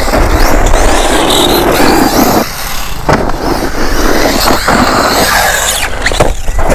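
Rlaarlo Omni-Terminator mini 1:10 RC monster truck driving over rough, loose dirt, its tyres churning dirt and gravel, with a few sharp knocks as it bounces over the ground.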